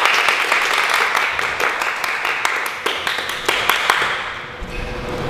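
A small group of people clapping their hands in applause, the claps thinning out and fading about four seconds in.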